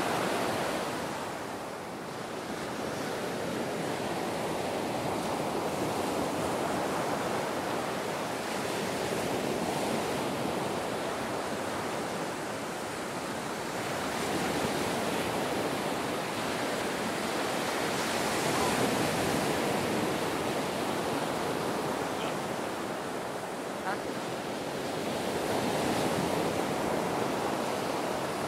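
Ocean waves breaking and washing up on a beach: a continuous surf wash that swells and eases every several seconds.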